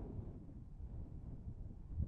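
Wind buffeting a phone's built-in microphone: a gusty low rumble.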